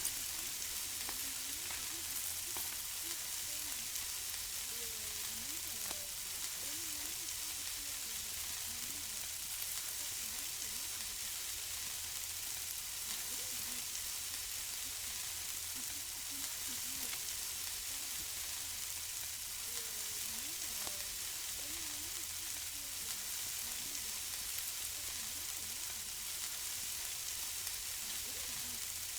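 Food sizzling on a barbecue grill: a steady, even hiss with scattered small crackles.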